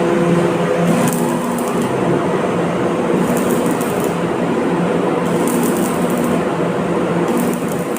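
Electric arc welding: the arc's steady crackling hiss over the welding machine's hum, with sharper bursts of crackle about every two seconds.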